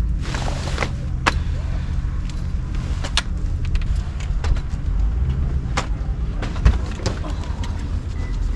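A vehicle engine running, a steady low rumble, with scattered clicks and knocks through it and a short rushing noise near the start.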